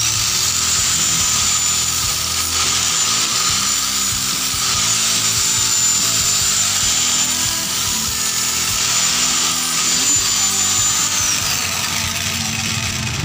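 Electric angle grinder running with a steady high whine, grinding the welded joints of a steel-rod frame. About eleven seconds in it is switched off and the whine falls as the disc spins down.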